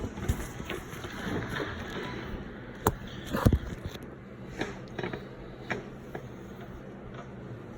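Scattered clicks and knocks of hand work under a pickup truck as its fuel tank is lowered, with one louder clunk about three and a half seconds in.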